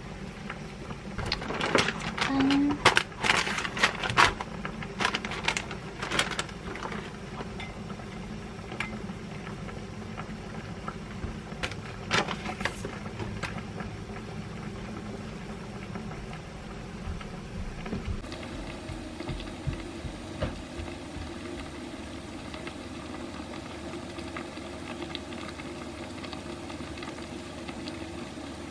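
Kitchen knife chopping on a wooden cutting board: a run of quick, irregular sharp knocks for several seconds near the start, then a few scattered knocks about twelve seconds in. After that only a steady low hum is left.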